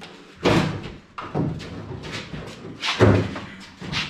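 Chevy S10 pickup bed being lifted off the frame by hand: a few heavy thumps and knocks as it shifts, the loudest about half a second in and about three seconds in.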